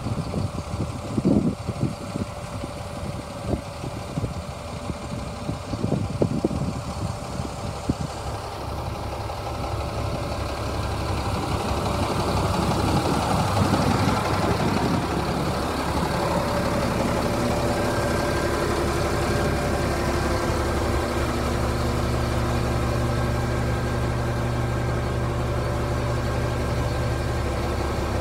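1999 GMC C7500 grain truck's engine running at idle, with irregular knocks in the first several seconds. About twelve seconds in it gets louder and settles into a steady hum with several steady tones.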